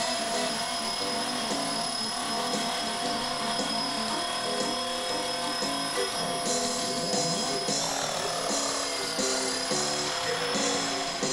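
Electric Blade 400 RC helicopter with a single-bladed main rotor in flight: a steady motor and rotor whine that shifts in pitch about eight seconds in. Background music with a steady beat plays along with it.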